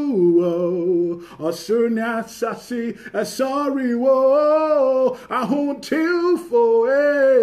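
A single voice singing a slow worship song without accompaniment, holding long notes in the middle and near the end.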